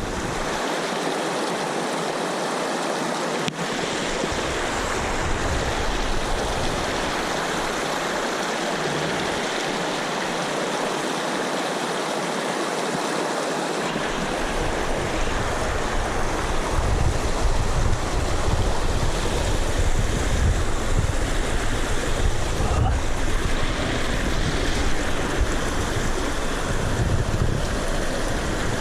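Mountain creek rushing steadily over rocks. From about halfway through, wind buffets the microphone in irregular low gusts.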